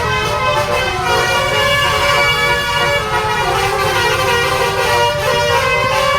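Indonesian 'telolet' multi-tone bus horn playing a tune, several horn notes sounding at once and changing from one chord to the next, with engine rumble underneath.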